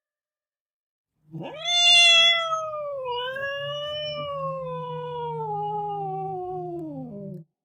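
Domestic cat giving one long, drawn-out meow of about six seconds, starting about a second in. It rises sharply, is loudest near the start, then slides slowly down in pitch before cutting off.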